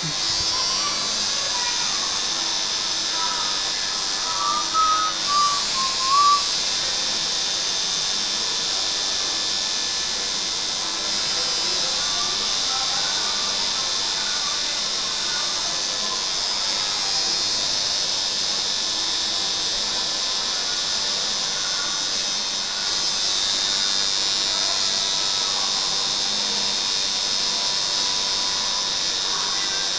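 Tattoo machine buzzing steadily as the needle works into skin. Faint music underneath, with a few short pitched notes about five seconds in.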